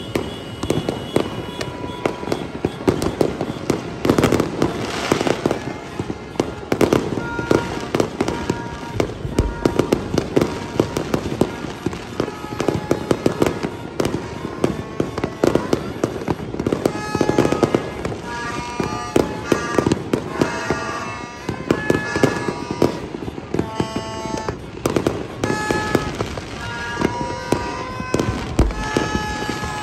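Dense, unbroken barrage of fireworks and firecrackers popping, banging and crackling all across a city. Short, high steady tones sound on and off over the bangs, more often in the second half.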